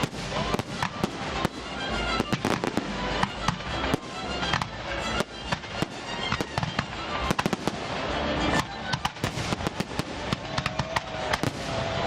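A 150-shot aerial fireworks battery firing: a dense, rapid string of sharp bangs, several a second, over a constant crackling haze.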